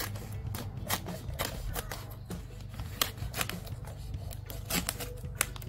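Scissors snipping through the thin plastic film of a diaper pack, with the plastic crinkling: a quick, irregular run of small clicks and crackles.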